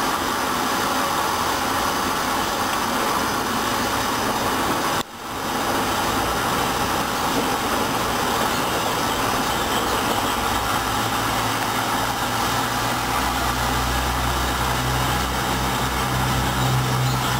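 Hoover washing machine running with a duvet inside: a steady rushing noise from the turning drum, broken briefly about five seconds in. A low motor hum builds from about halfway through.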